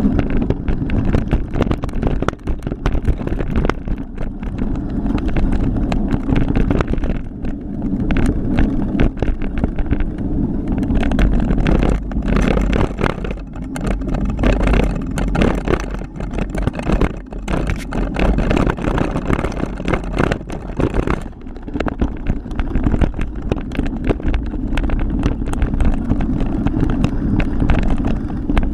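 Kron XC 500 mountain bike rattling and knocking over a rough downhill trail, with wind rushing over the camera's microphone. The knocks come irregularly, many a second.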